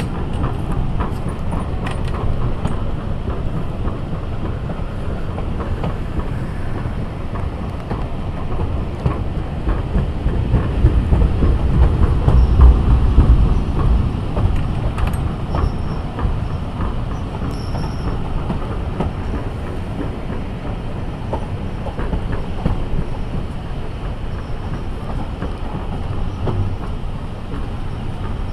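Passenger train running along the line, heard from an open carriage window: a steady rumble of wheels on rail with clickety-clack over the joints. The low rumble swells louder for a few seconds around the middle.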